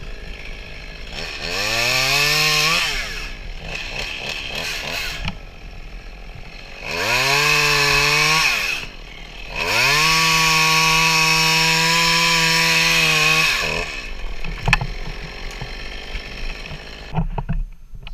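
Stihl MS 192 top-handle two-stroke chainsaw revving up three times, dropping back to idle in between. The third rev is a long, steady full-throttle run while the chain cuts through a limb. A sharp click comes shortly after the saw drops back to idle.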